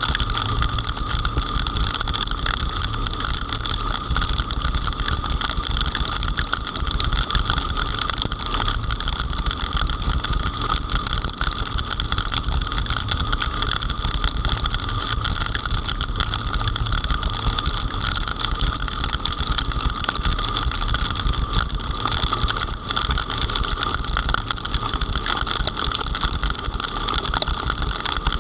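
Steady noise of a car driving through heavy rain: engine and tyres on a wet road, with no distinct knocks or bangs.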